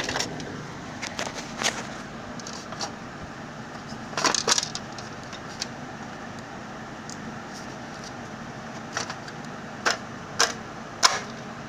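Hard plastic parts of a Xerox copier fuser unit being handled and fitted together: scattered clicks and knocks, a quick cluster about four seconds in and several sharp knocks near the end, over a steady low hiss.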